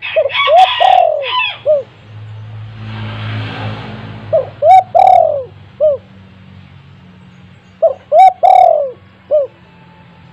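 Spotted dove cooing: three phrases of four or five coos each, a few seconds apart.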